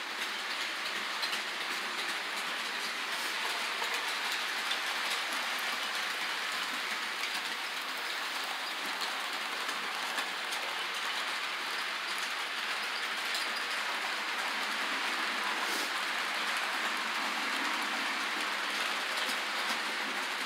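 Model train running along the layout track: a steady rolling noise from the locomotive and cars on the rails, with a few faint clicks.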